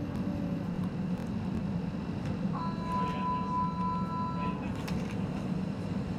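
A maxi-scooter's engine idling with a steady low hum. About two and a half seconds in, a steady high-pitched tone like a horn or beep sounds for about two seconds, then stops.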